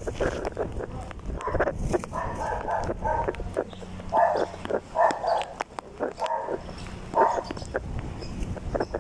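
A dog barking repeatedly in short bursts, about one every half second to a second, over a steady low background noise.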